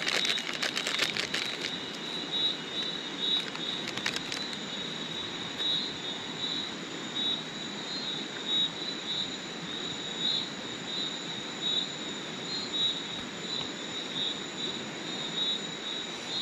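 Insects chirping in a steady high chorus that swells and fades in pulses about once or twice a second, with a thin high whine above it. Over the first couple of seconds a paper sachet crinkles and tears open, with a few more crackles about four seconds in.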